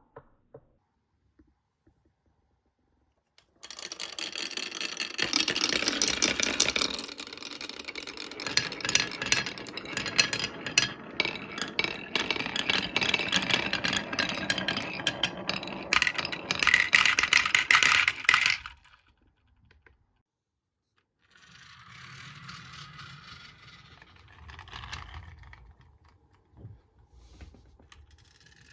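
Marbles rolling and clattering down a HABA marble run, a dense rattle of small clicks. It starts a few seconds in and stops suddenly, then lighter clicking follows after a short pause.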